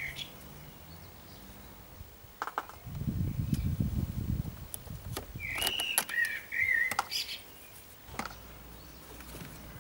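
A bird gives a short chirping call with falling notes a little past the middle. A low rumble runs for about two seconds before it, and a few light clicks are scattered through.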